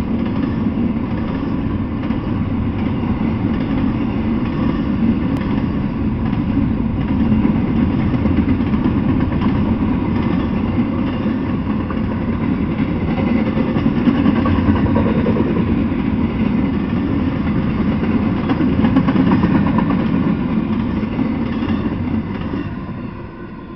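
Freight train of double-stack intermodal well cars rolling past: a loud, steady rumble of steel wheels on rail that fades away near the end as the last car clears.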